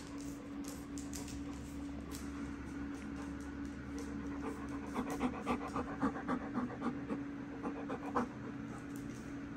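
Labrador retriever panting close by, quick and rhythmic at about five breaths a second. It starts about halfway in and stops shortly before the end.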